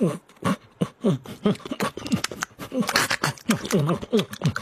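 Shiba Inu eating a treat: a quick run of short vocal sounds, each falling in pitch, several a second, with sharp clicks of teeth and crunching between them.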